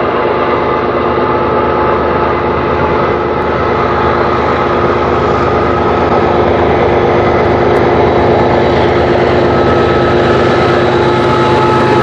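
Diesel freight train running, a loud steady engine drone with several held tones over a rushing rail noise.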